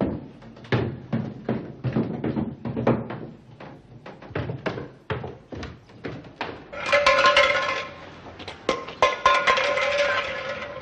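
Footsteps knocking down a wooden staircase, one short thud after another. About six and a half seconds in, music begins, with held tones and tapping beats.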